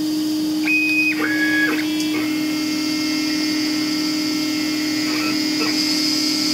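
CNC router's stepper motors whining as they drive the laser head through a cut, in clean steady tones that jump to new pitches several times. Under them runs the steady hum of the vacuum hold-down table.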